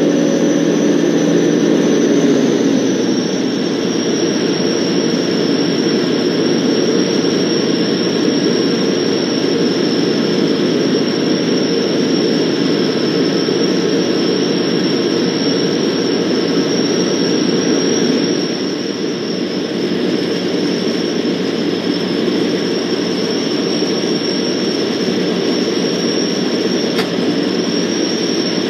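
Van's RV-12 light aircraft's Rotax 912 four-cylinder engine and propeller running steadily in flight, heard from inside the cockpit, with a thin steady high whine over it. The noise drops slightly about two-thirds of the way through.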